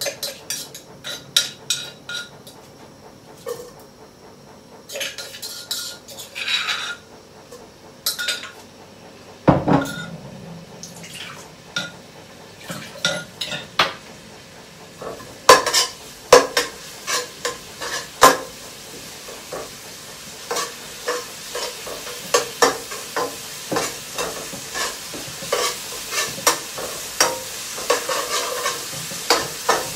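Cooking utensils clinking, tapping and scraping against a clay mortar and a metal frying pan in irregular knocks, with one dull thump about ten seconds in. Food sizzles in the pan, growing louder near the end as stirring picks up.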